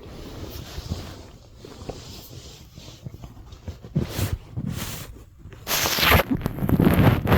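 Human stomach growling and gurgling, recorded up close: a low rumbling at first, then a run of sharp crackles from about four seconds in and a louder noisy stretch near the end.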